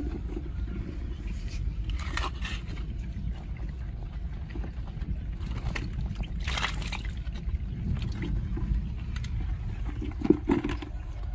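A hand splashing and sloshing in shallow puddle water a couple of times while feeling for a fish, over a steady low rumble. A sharp thump comes near the end.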